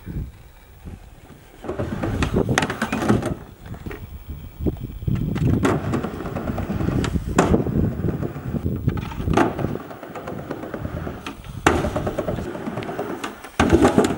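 Skateboard wheels rolling over the rounded metal roof of a train car, a rough rumble that comes and goes. Several sharp knocks and clacks of the board break into it.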